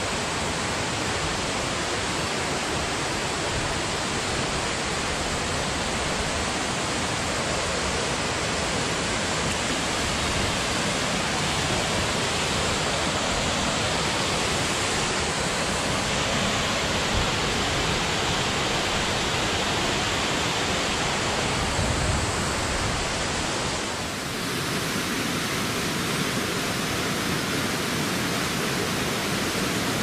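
Cauldron Force waterfall on Walden Beck, a steady, unbroken rush of falling water. About three-quarters of the way through, the sound dips briefly and its tone shifts slightly.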